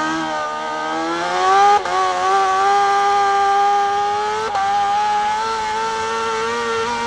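Racing motorcycle engine running at high revs, heard from a camera mounted on the bike. Its note holds high and climbs slowly, with two brief breaks at gear changes.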